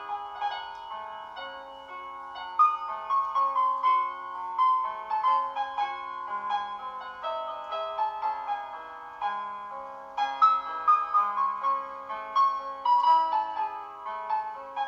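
Background piano music: a melody of separate notes over held lower notes.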